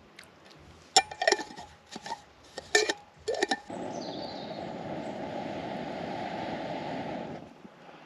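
Several sharp metal clinks as a pot lid is set on a cookpot, then a steady rush of air for about four seconds as a metal blow tube blows into the wood fire under the pot. The rush stops abruptly near the end.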